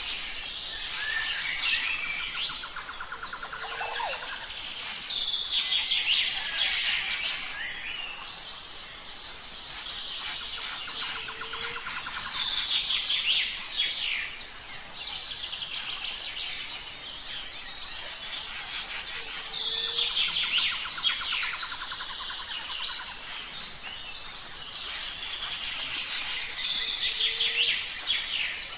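Birds chirping and calling, many short, quick high calls and trills overlapping, swelling and easing in a similar pattern every seven or eight seconds.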